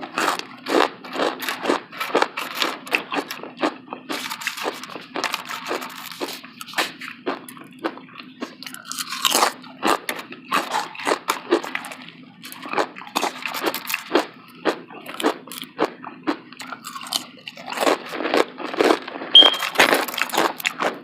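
Close-miked crunching and chewing of crisp food, with many sharp irregular crunches in quick succession.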